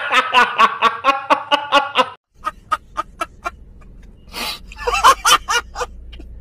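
A man laughing hysterically in rapid, rhythmic bursts. About two seconds in it cuts to another man cackling in quick, breathy bursts over a low steady hum.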